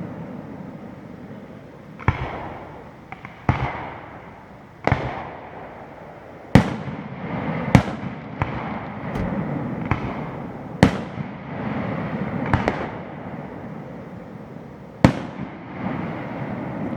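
Aerial fireworks shells bursting: a dozen or so sharp bangs every second or two, with a rolling, echoing rumble between them.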